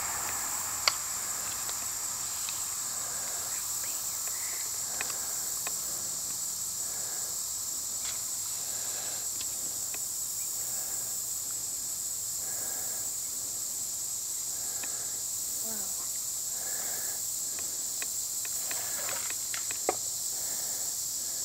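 Insects chirring in a steady high-pitched chorus, with a sharp click about a second in and a softer one near the end.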